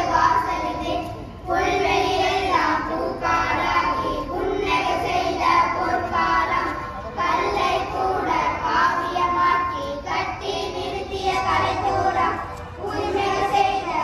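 A group of schoolboys singing a song together in unison into microphones, in phrases separated by short pauses for breath.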